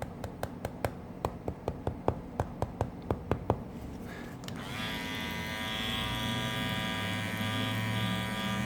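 A quick run of light, sharp clicks, about four a second, then an Andis Master Cordless hair clipper switches on about five seconds in and runs with a steady buzz. This is its vibration noise, which is reduced by bending the lid down.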